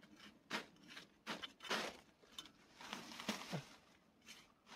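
A small hand shovel digging into loose soil at the base of a cassava plant: several short, quiet scrapes a second or so apart.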